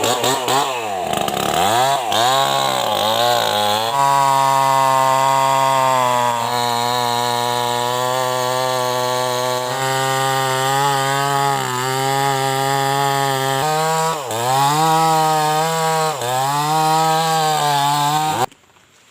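New West 588 two-stroke chainsaw revving up and down several times, then running steadily at high speed while felling a sono tree. It dips twice near the end, then cuts off suddenly.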